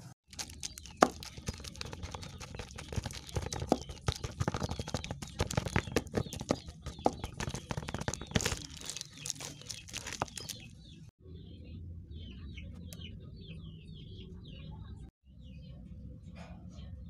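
Metal fork mashing boiled potatoes, with rapid clicking and scraping against the steamer tray and bowl for about the first ten seconds. After that comes a low steady hum with faint short bird chirps.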